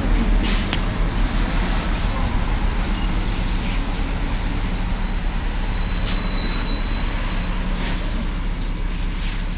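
Steady low hum of a MAZ-203 city bus heard from inside the cabin, with a thin high whine from about three seconds in until shortly before the end, and two short hisses, one near the start and one near the end.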